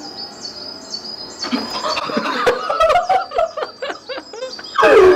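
A bird chirping, short high notes falling in pitch about twice a second. About a second and a half in, clicks and rising and falling calls join in, and near the end a loud cry falls sharply in pitch.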